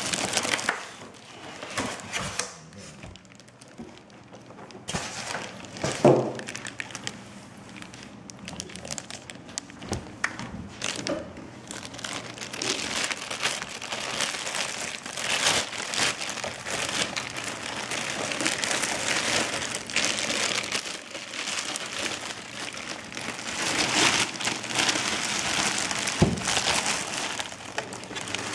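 Clear plastic bag crinkling and rustling as it is handled and pulled off a sewing machine, in irregular swells, with a few knocks among it, the loudest about six seconds in.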